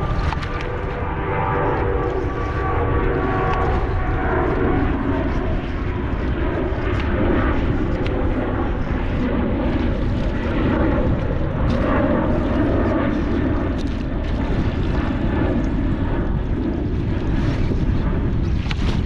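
Wind buffeting the microphone over a steady engine-like drone, with faint droning tones in the first few seconds and scattered light clicks.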